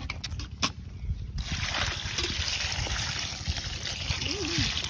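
Water poured from a metal pot onto fish in a woven bamboo basket: a steady splashing stream that starts about a second and a half in, after a few light knocks.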